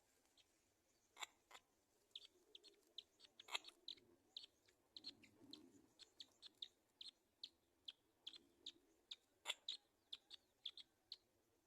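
Faint, short high-pitched bird chirps repeating about three times a second, with a few sharp clicks.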